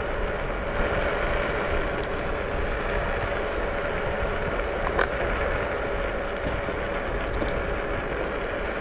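Wind buffeting the microphone and tyre rumble on cracked asphalt from a Fluid Horizon electric scooter riding at speed, with a faint steady hum. Two light clicks about two and five seconds in.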